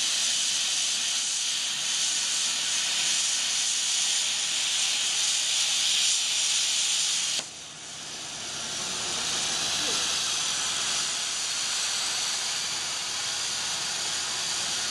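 Plasma torch of a CNC pipe cutting machine cutting through a steel pipe: a loud, steady hiss that cuts off suddenly about seven seconds in as the arc stops. A softer hiss builds again over the next couple of seconds and carries on.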